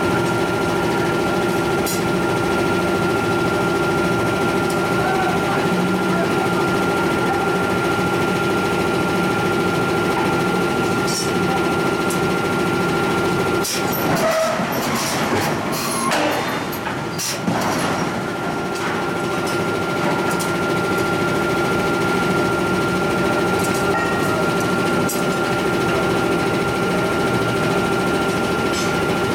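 Steady forge-shop machinery drone, a constant high whine over a lower hum. About halfway through it dips for a few seconds while a run of knocks and metal clatter sounds, then the drone carries on.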